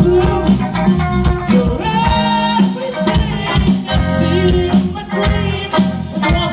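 A song with a singer, drums and heavy bass, played loud over a sound system during a sound check.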